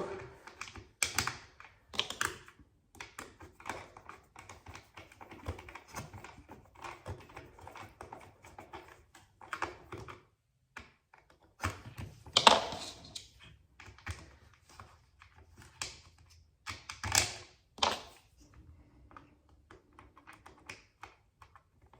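Irregular plastic clicks, taps and knocks as the parts of a Dyson V6 cordless vacuum are handled and fitted together, with two louder knocks about twelve and seventeen seconds in. The vacuum's motor is not running.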